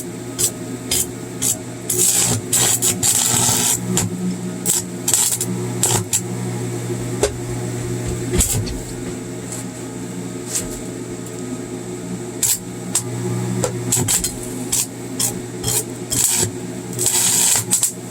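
Stick-welding work with 7018 rod: a steady electric hum with irregular scraping strokes and sharp clicks over it, in short bursts about two seconds in and again near the end.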